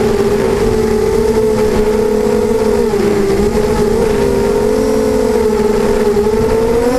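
Beecrazy Daredevil FPV racing quadcopter's electric motors and propellers whining in flight. Several close pitches waver up and down together as the throttle changes, over a low rush of wind.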